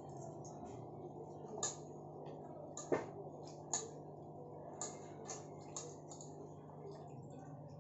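Half a dozen irregular light clicks and taps of a hand and cloth working in a steel bowl, the loudest about three seconds in, over a low steady hum.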